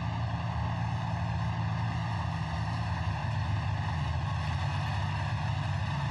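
Heavy tracked military vehicle's engine running steadily, a low drone without letup.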